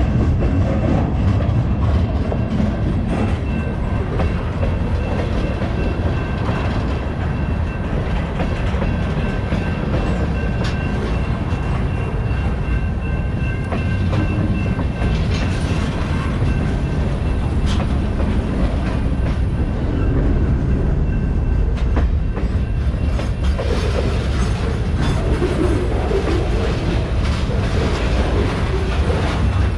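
CSX freight train rolling past: a steady low rumble of the cars with occasional wheel clicks over the rail joints. A faint steady high ring runs through the first half.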